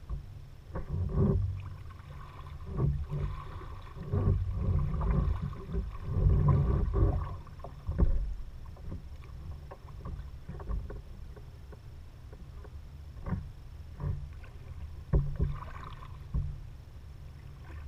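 Kayak paddling: paddle strokes dipping and splashing in the water in irregular swells, with a few sharp knocks scattered through.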